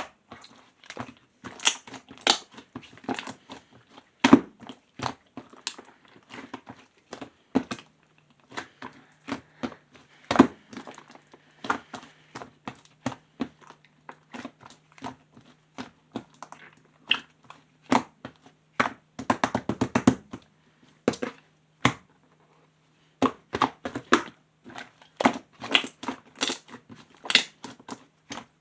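Clear slime being squished and pressed by hand, making irregular sticky clicks and pops. A faint low hum comes in about seven seconds in.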